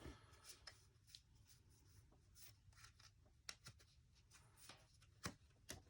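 Near silence with faint, scattered ticks and light rustles of trading cards and packaging being handled.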